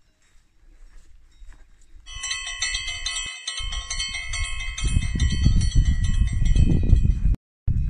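A cowbell on a grazing cow clanking over and over, its ring starting about two seconds in. A low rumble from about halfway, like wind on the microphone, builds under it.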